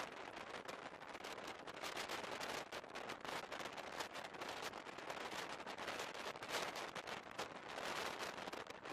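Passenger train running on the rails, heard from inside the carriage: a steady, dense crackling rattle of many rapid clicks.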